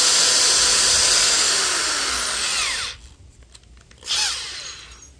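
Corded electric drill running at full speed, boring a pilot hole into a wooden 2x4. The trigger is released about three seconds in and the motor winds down with a falling whine. A short burst follows a second later, then a few light clicks.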